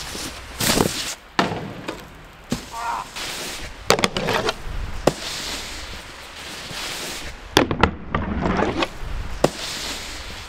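A snowboard on packed snow: the board scraping and sliding in several runs, with sharp knocks as it hits the snow. The loudest knocks come about 4 and 7.5 seconds in.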